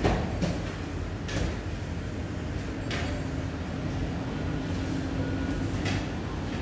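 Light knocks and clatters of particleboard bookcase panels being handled and set against each other, about five in all, over a steady low rumble.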